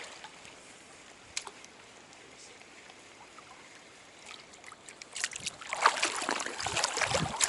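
Stream water trickling faintly, with a single click about a second and a half in. From about five seconds in, louder splashing and sloshing with sharp knocks and clicks as water is churned close by.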